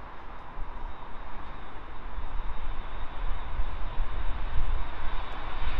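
Jet engines of a DHL Airbus A300 freighter landing, a steady rushing roar over a low rumble that grows louder as the plane flares and touches down.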